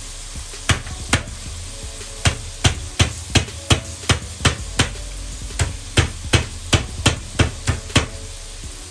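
Thick blended spice paste of shallots, garlic, chilli and turmeric frying in oil in a pan. The bubbles burst with sharp pops, about three a second, over a low steady sizzle, as the paste is sautéed down until fully cooked.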